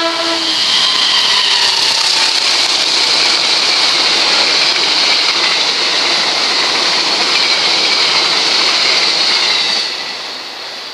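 Passenger train of stainless-steel coaches passing close at speed: a loud steady rush of wheels on rail with a high hiss. The tail of a train horn fades out in the first half second, and the train noise cuts off sharply about ten seconds in.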